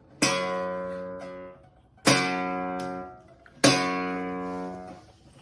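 Music: an acoustic guitar strummed in single chords, three strums about one and a half to two seconds apart, each left to ring out and fade.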